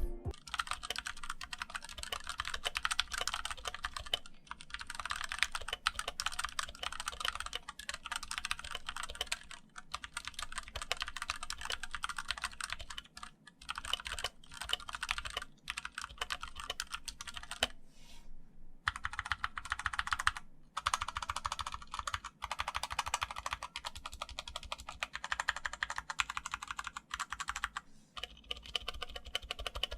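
Fast typing on a Newmen 60% Bluetooth mechanical keyboard fitted with brown (tactile) switches: a dense stream of key clacks broken by a few brief pauses, the longest about two-thirds of the way in.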